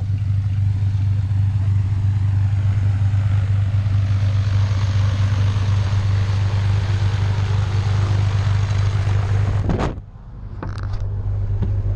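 Single-engine high-wing jump plane's piston engine and propeller running steadily at idle, a loud low hum with a hiss over it. The sound drops away sharply near the end and then builds back up.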